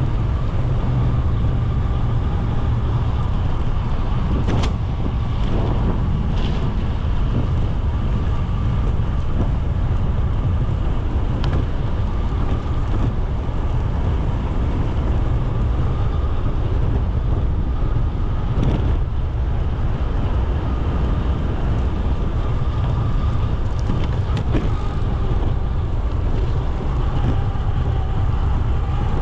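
Steady rumble of wind and road noise from a bicycle in motion, with a few short clicks.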